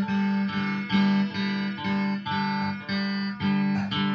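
Stratocaster-style electric guitar strummed, the same chord struck again roughly twice a second in a steady rhythm.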